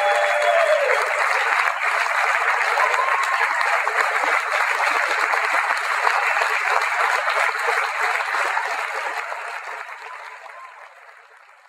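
Large audience applauding steadily, the clapping fading away over the last few seconds.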